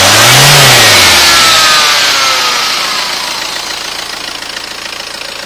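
HDi diesel engine briefly revved, then dropping back to idle. A strange high-pitched whine falls in pitch as the revs die away, and the engine settles into a steady idle about three seconds in.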